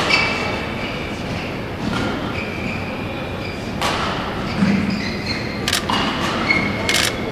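Badminton rally: a shuttlecock struck by rackets with several sharp hits a second or two apart, and short shoe squeaks on the court floor between the hits.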